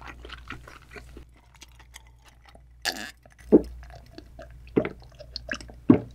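Close-miked chewing of raw yellowtail sashimi with small wet mouth clicks, then gulping swallows from a glass of clear drink: about three louder low gulps in the second half.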